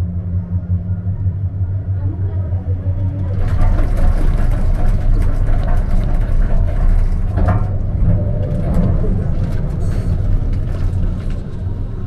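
Gondola cable car cabin rumbling steadily as it travels along the cable. From about three and a half seconds in, a louder, rougher rumble with scattered clicks and rattles sets in as the cabin runs into the station.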